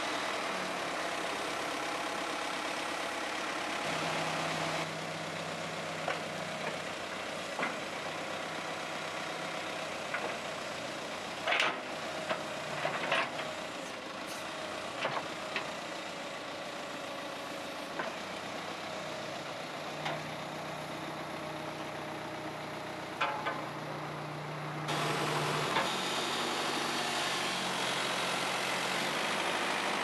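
Volvo BL61 backhoe loader's diesel engine running steadily, its low hum stepping up and down in pitch a few times, with a few sharp metallic clicks and clunks in the middle of the stretch.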